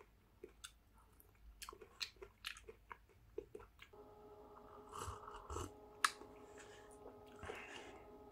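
A person eating instant cup miso soup with disposable wooden chopsticks. First come small clicks of the chopsticks against the cup and chewing, then sips from the cup. A steady hum of several tones starts about four seconds in.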